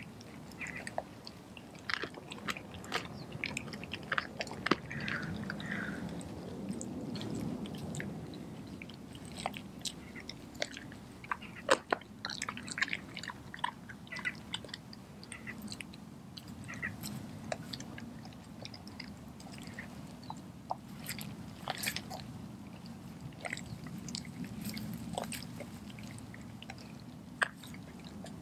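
A Doberman chewing and biting into a whole raw chicken with its feathers on, with wet chewing and irregular sharp crunches of bone, the loudest snaps a little under halfway through and again near three-quarters of the way.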